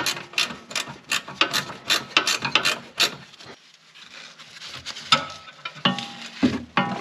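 Ratchet wrench clicking in quick strokes, about four a second, loosening the nut on the lower stud of a front sway bar end link. After a short pause, a few metal knocks and clinks near the end as the end link is handled.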